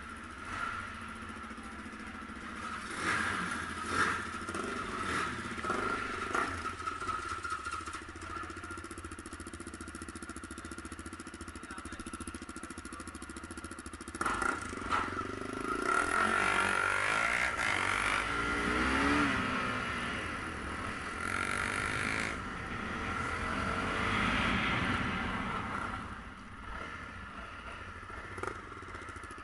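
Motorcycle engines running at low revs, idling and moving off slowly, with a steady high whine throughout. A few sharp knocks come in the first seconds, and the sound grows louder and busier from about halfway through for several seconds before easing off.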